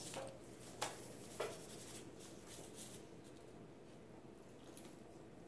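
A couple of faint sharp clicks and some scratchy rustling of something being handled in the first few seconds, then quiet room tone.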